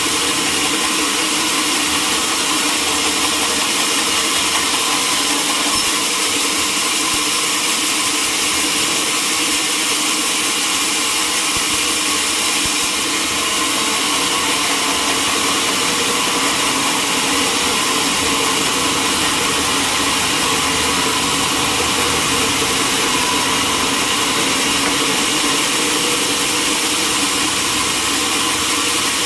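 Sawmill machinery running steadily: a loud, even mechanical noise with several steady tones and a dense hiss, unchanged throughout.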